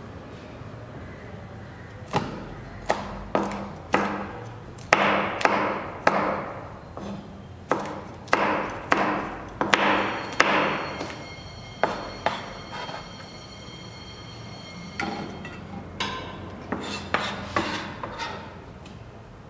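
Chef's knife chopping vegetables on a plastic cutting board over a stainless-steel counter: a run of sharp, irregular chopping knocks that begins about two seconds in. A high metallic ring hangs on for a few seconds about halfway through.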